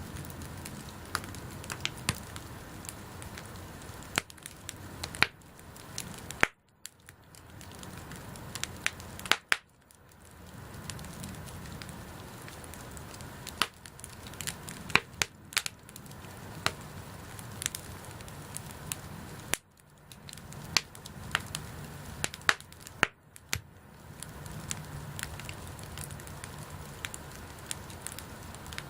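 Wood bonfire burning, with frequent irregular sharp pops and crackles over a steady low hiss of the flames.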